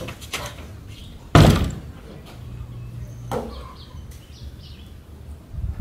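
A wooden toilet-stall door slams shut about a second and a half in, followed by a softer knock of the door about two seconds later.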